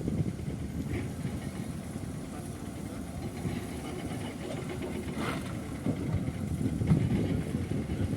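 Diesel engine of heavy earthmoving machinery running steadily with a low rumble, with two brief knocks, one about a second in and a sharper one about halfway through.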